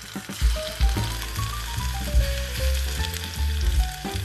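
Oil sizzling in a miniature pan during a fish stir-fry, over background music with a bass line and a melody of short stepped notes.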